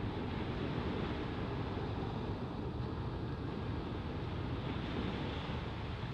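Wind buffeting the microphone over the steady wash of small sea waves breaking on the shore.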